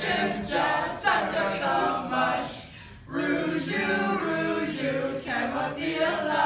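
A small group of men and women singing together a cappella, holding sustained notes, with a brief pause about three seconds in before they carry on.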